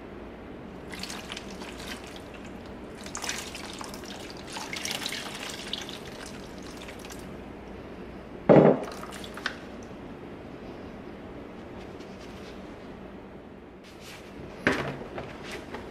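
Water poured from a glass pitcher over a leather baseball glove and splashing and dripping into a plastic basin in several short spells, during a hot-water break-in treatment. A single loud knock comes about halfway through, and a few sharper knocks come near the end.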